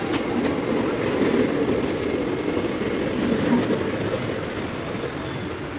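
ICF passenger coaches rolling past on the track as the train comes in, a steady rumble of wheels on rails that eases slightly toward the end. A faint high squeal joins about three seconds in, typical of wheels or brakes as the train slows.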